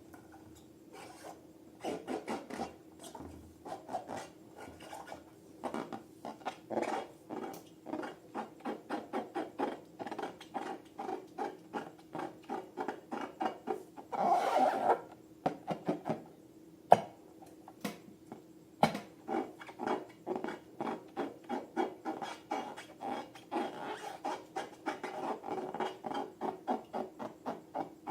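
Slime being worked and mixed by hand: a long run of short rubbing, scraping strokes at about two a second, with one longer, louder scrape about halfway through and a couple of sharp clicks soon after.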